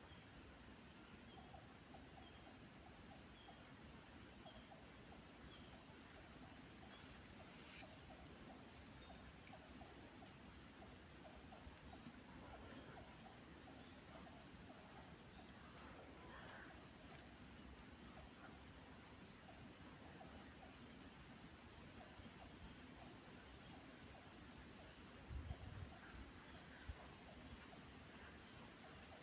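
A steady, high-pitched chorus of insects, getting slightly louder about ten seconds in.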